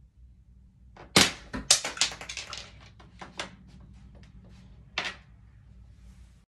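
Makeup items and their plastic containers being handled at close range: a quick run of clicks and clacks, loudest just after a second in, thinning out over about two seconds, then one more click about five seconds in.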